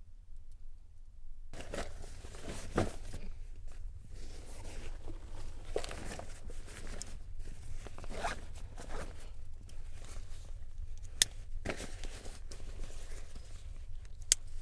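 Nylon hiking backpack being handled and packed: fabric rustling and scraping with small knocks, and two sharp clicks, one about 11 seconds in and one near the end. The first second and a half is quiet.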